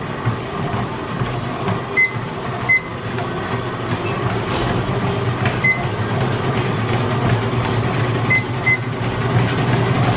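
Treadmill running: a steady motor hum with the belt and footfalls thudding, getting louder as she goes from walking to running. Short electronic beeps from the console sound five times, twice as quick pairs, as the speed is set.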